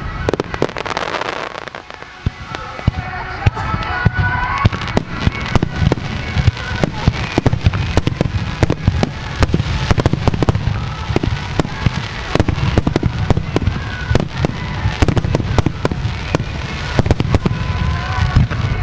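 Starmine fireworks: a rapid-fire sequence of aerial shells bursting in a dense run of sharp bangs and crackles over a low rumble. There is a brief thinning about two seconds in before the bangs come thick and fast again.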